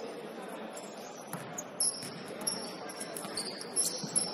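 Basketball game in a gym: sneakers squeaking on the court and a ball bouncing, with players' voices in the background.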